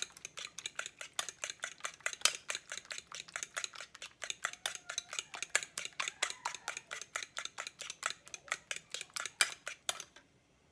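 A metal utensil beating eggs in a ceramic bowl, clinking rapidly against the bowl about four to five times a second, and stopping about ten seconds in.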